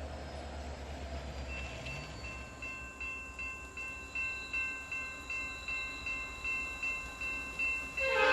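Grade crossing bell starting about a second and a half in and ringing at about three strikes a second as a train approaches the crossing. Near the end, a locomotive horn begins to sound, much louder than the bell.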